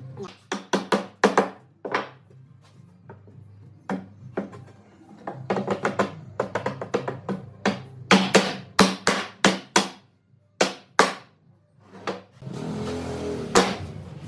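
Instrumental background music with sharp percussive hits; about twelve seconds in, a steady rushing noise comes in under it.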